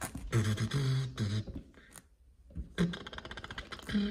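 A man's voice making wordless vocal sounds: short, pitched, beatbox-like syllables in two spells with a brief pause between them.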